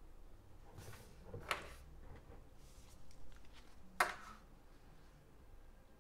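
Quiet tabletop handling sounds: a short rustle of paper sliding on the table, then a single sharp tap about four seconds in as things are set down on the desk.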